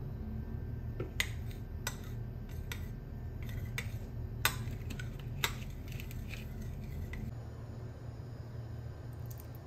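Metal spoon clinking and scraping against a white ceramic bowl while stirring minced garlic, herbs and olive oil. About a dozen irregular sharp clinks, the loudest two in the middle, stop a couple of seconds before the end. A low steady hum runs underneath.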